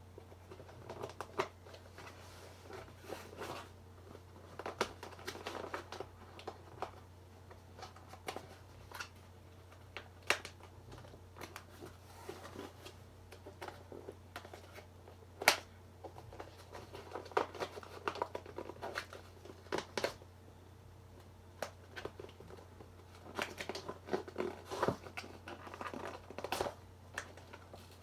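Hands opening a cardboard parcel: irregular clicks, scrapes, rustling and tearing of tape and packaging, with one sharp knock about halfway through.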